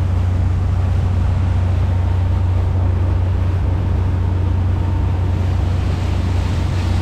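Inboard engine of a 1997 Albin 34 motor cruiser running steadily underway: a constant low drone, with the rush of water and wind along the hull.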